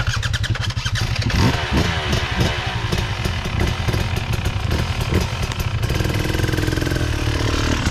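A dirt bike engine running close by. It is revved up and down several times in the first few seconds, then held at a steadier speed.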